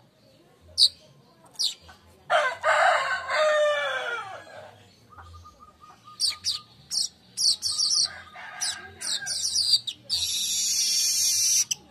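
Manyar weaver birds calling: sharp falling chirps, then a quick run of short chirps, and near the end a dense, buzzy song phrase. A rooster crows loudly about two seconds in.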